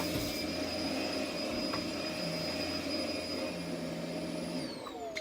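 Dyson DC24 upright vacuum cleaner running at a steady high whine. It is switched off about four and a half seconds in, and its motor pitch falls as it spins down.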